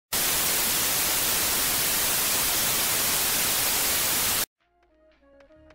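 Loud, even hiss of analog TV static that cuts off suddenly about four and a half seconds in. Faint music begins right after the cut.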